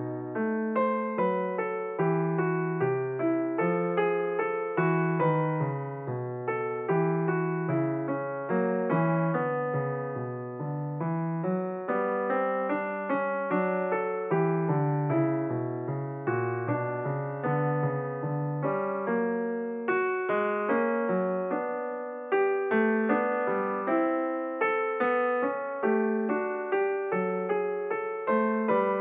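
Background music: solo piano, notes struck at an even pace, each one fading after it is played.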